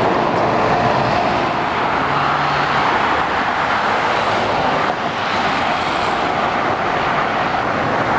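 Steady motorway traffic noise: tyres and engines of lorries and cars passing on a dual carriageway.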